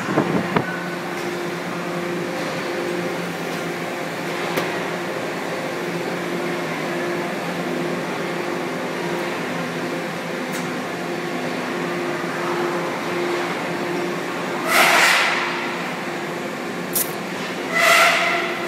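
Steady electrical and mechanical hum of aluminium extrusion plant machinery, with a few faint clicks. Two short, louder bursts of noise come near the end, about three seconds apart.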